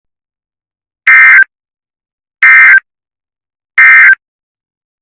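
Emergency Alert System (SAME) end-of-message data tones: three short, loud, identical buzzing digital bursts a little over a second apart, signalling the end of the alert.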